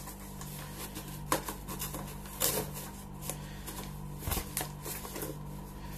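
Taped cardboard packaging being handled and pulled apart: irregular rustling and scraping with a few sharp crackles, over a low steady hum.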